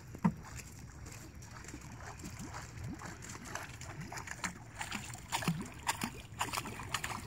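Large foam bubble-head popper fly being stripped hard across the lake surface, chugging and splashing in irregular pops. There is one sharp pop just after the start, and the pops come quicker and louder in the last two seconds or so as the fly nears the boat.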